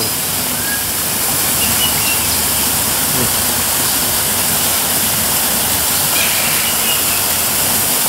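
Waterfall pouring into a pool: a steady, heavy rush of falling and splashing water.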